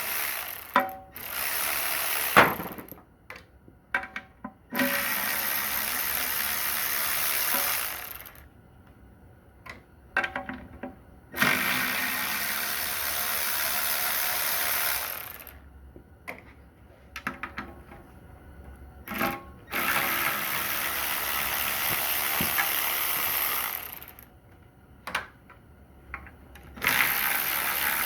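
Power ratchet running in bursts of three to four seconds, about five times, with short clicks and metal handling in the quieter gaps, spinning out the oil-pan bolts of a Corvair Powerglide transmission.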